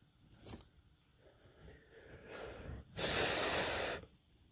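A loud, forceful puff of breath lasting about a second, about three seconds in, after softer breathy sounds.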